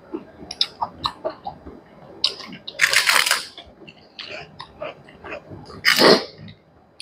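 Close-up eating sounds: steady chewing and small wet lip smacks, with two louder bursts about three seconds and six seconds in.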